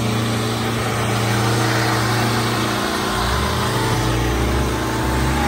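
Preet tractor's diesel engine running with a loud, steady drone over crowd noise; about three seconds in its sound shifts to a deeper, lower rumble.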